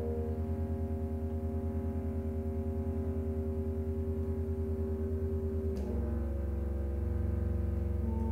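Contemporary chamber ensemble holding low sustained drones, with a bass clarinet among them; the sound throbs quickly and evenly. About six seconds in, the held chord shifts with a small click.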